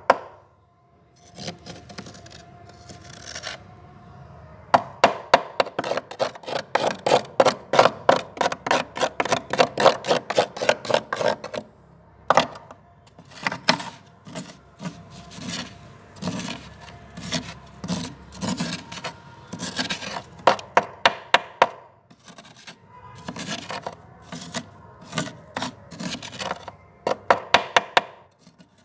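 Metal spoon scraping soft frost off the walls of a freezer, in quick rasping strokes of about three or four a second. The strokes come in several bursts with short pauses between them.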